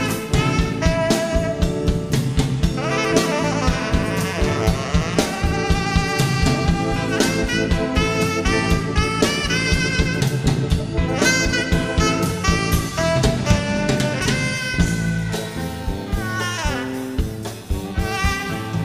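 Blues-funk ballad played by a small band: a saxophone melody with sliding notes over a steady drum-kit beat.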